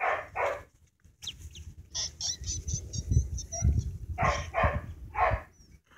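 Ducklings peeping: a quick run of short, high peeps a couple of seconds in, then a few louder calls near the end.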